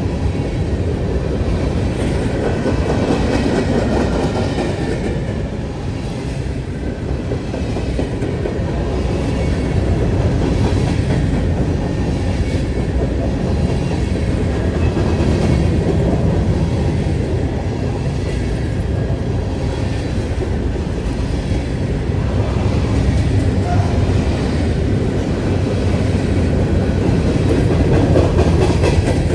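Freight train cars rolling past at steady speed: a continuous rumble with the clickety-clack of steel wheels over the rails.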